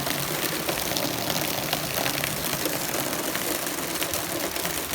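Steady rain shower: an even hiss of falling rain with many small drip and splash ticks.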